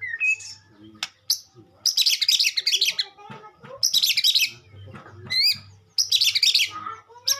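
White-rumped shama (murai batu) singing: three loud bursts of rapid, high warbling song about two seconds apart, with softer calls between them. A faint low hum runs underneath.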